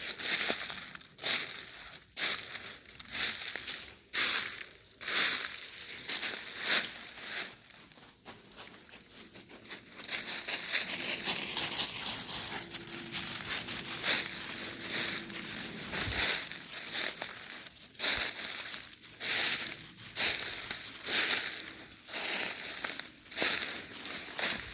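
Footsteps crunching through dry leaves and sticks, about one step a second, with a brief softer pause and a stretch of denser, continuous crunching partway through.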